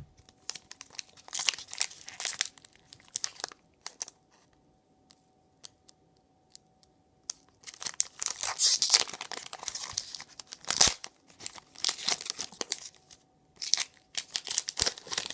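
Foil wrapper of a Pokémon trading-card booster pack being torn open and crinkled, in clusters of rustling with a few seconds' pause in the middle.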